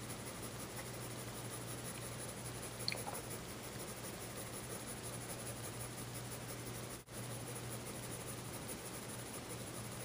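Pencil scratching rapidly back and forth on sketchpad paper, continuous scribbled shading strokes. A brief high chirp sounds about three seconds in, and the sound cuts out for an instant about seven seconds in.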